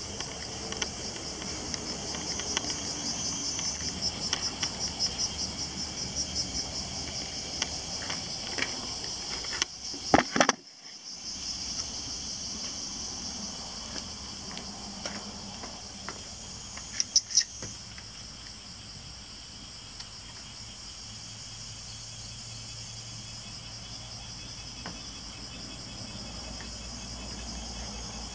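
A steady, high-pitched chorus of summer insects, pulsing rhythmically over the first several seconds. A few loud knocks come about ten seconds in, and a short clatter of clicks around seventeen seconds.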